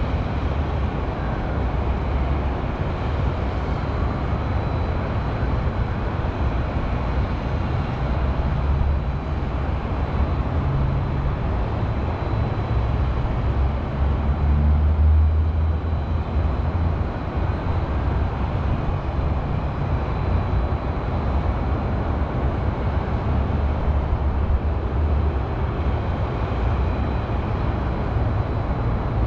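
City highway traffic humming steadily with a deep rumble, swelling a little louder about halfway through.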